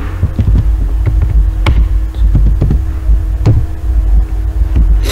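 A loud, steady low hum runs throughout, with a thin steady tone above it, and a few scattered single computer keyboard key clicks as a word is typed.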